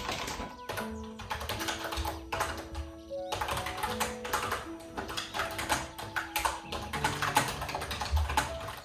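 Typing on a computer keyboard: a fast, continuous run of key clicks, under background music with held notes.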